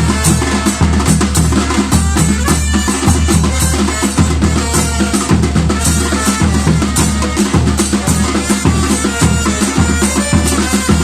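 Batucada-style percussion ensemble playing a steady groove, with deep bass-drum beats under dense drum strokes.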